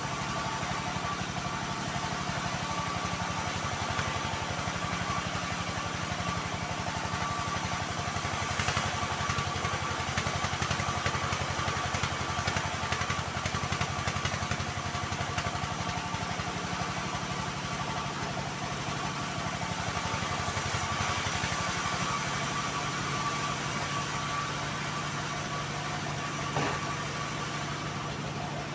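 Homemade bandsaw mill running steadily while sawing a mahogany log. Its steady hum carries a rougher, louder cutting noise through the middle stretch.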